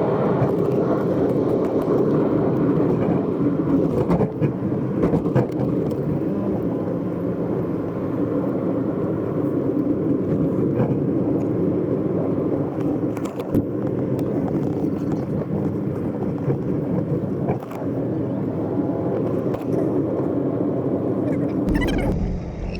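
An engine running steadily under way, with scattered short knocks and rattles.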